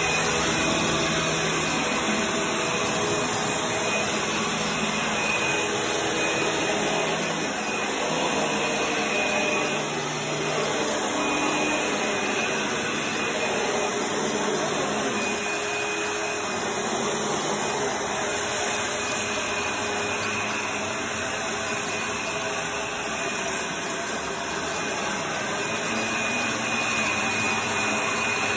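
Dirt Devil Breeze upright vacuum cleaner running steadily with a high motor whine. It is pushed back and forth over hardwood floor, then onto carpet.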